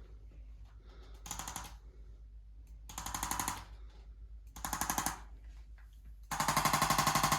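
Handheld electric percussion tool, such as a chiropractic adjusting instrument or massage gun, rattling in rapid even pulses: three short bursts, then a longer, louder run near the end.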